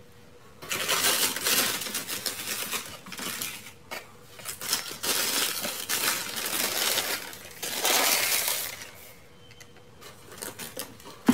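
White tissue paper crinkling and rustling as a hand pulls it back from a pair of shoes in a cardboard shoebox. The crinkling starts just under a second in, pauses briefly around four seconds, and dies down near the end.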